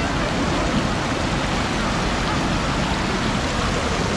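Fast white water rushing steadily down a concrete chute below a river weir.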